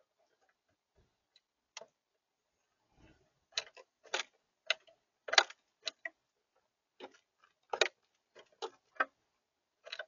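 Mourning dove pecking seed from a feeder dish: a run of irregular, sharp taps of its beak on the dish, sparse at first and then coming in quick clusters, the loudest a little past halfway.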